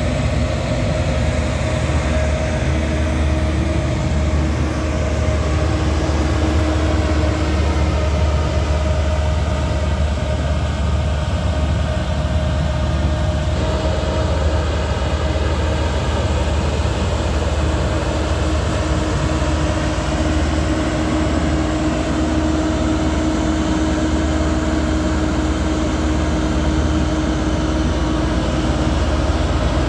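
HAMM 3410 single-drum vibratory road roller's diesel engine running steadily: a loud, heavy low drone with a steady hum over it.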